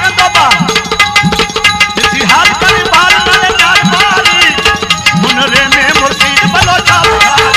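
Indian devotional folk music led by tabla, over steady held drone tones, with a melody line that slides up and down in pitch and a steady rhythmic beat.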